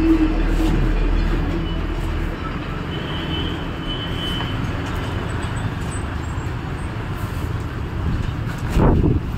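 Road traffic noise from the street: a motor vehicle engine runs with a steady low hum for the first two seconds or so, then a general traffic haze, with a louder rush near the end.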